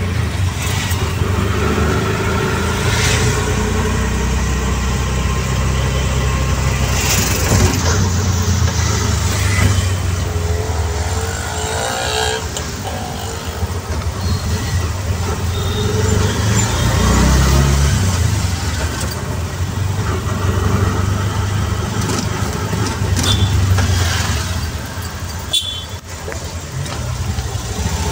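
Auto-rickshaw's small engine running through city traffic, its note rising and falling with the throttle over steady road noise, with a few short higher-pitched sounds from the traffic.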